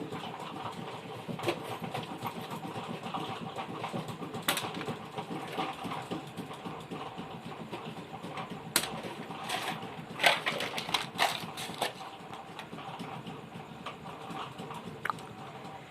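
Steady rattling mechanical hum, like a small motor running, with a few sharp clicks and taps scattered through it.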